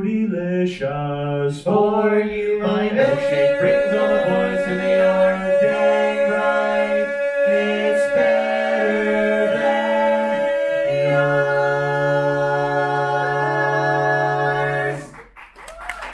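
Barbershop quintet singing a cappella in close harmony: a few moving notes, then one long held chord that cuts off sharply near the end.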